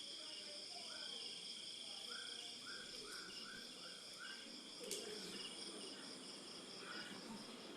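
Crickets chirping steadily in a continuous high trill, with a quick run of about eight short rising chirps in the first half and a single sharp click about five seconds in.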